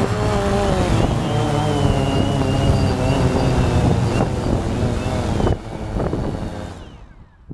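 DJI Phantom 2 quadcopter's four motors and propellers whirring at low throttle, their pitches wavering. The sound drops suddenly about five and a half seconds in as the motors power off automatically, then fades away.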